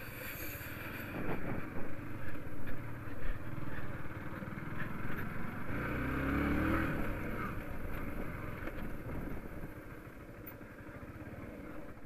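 Motorcycle engine running while riding slowly over a bumpy dirt track, mixed with wind and scattered knocks from the bike jolting. About halfway through the engine briefly rises in pitch, and the sound eases off near the end as the bike slows.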